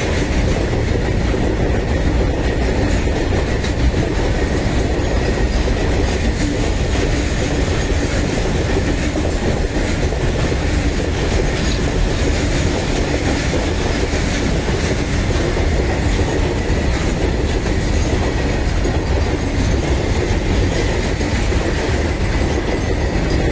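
Freight train of container flat wagons rolling along the rails: steady wheel-on-rail running noise.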